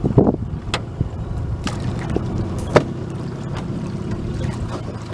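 Water lapping and trickling against the hull of a flat-bottomed jon boat over a steady low rumble, with three sharp knocks on the boat about a second apart.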